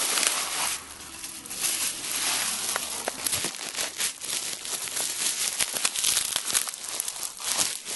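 Packing tape and wrapping being pulled and torn at while opening a package: irregular crinkling and crackling with sharp tearing noises.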